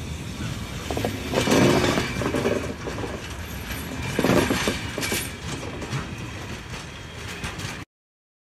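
A train running on rails, with steady wheel-and-track noise that swells louder twice. It cuts off suddenly near the end.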